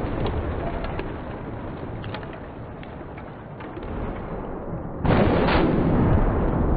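Car crash-test impact noise: a rumbling, crackling din that dies down, then a sudden loud burst of noise about five seconds in.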